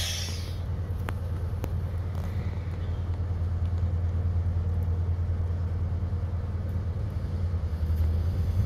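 Diesel multiple unit engine idling at a platform, a steady low drone. A high hiss fades out in the first half-second.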